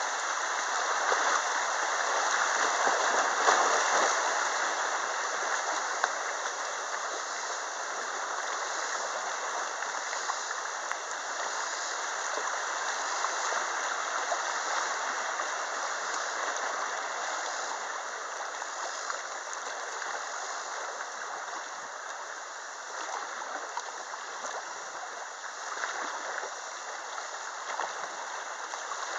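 Rushing water of a shallow rocky river riffle running past a kayak, a steady hiss that is loudest in the first few seconds.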